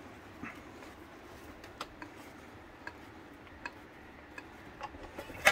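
Scattered faint metallic ticks as a thin MIG-welded steel panel is worked back and forth by hand in a bench vise, with a quick run of louder clicks right at the end.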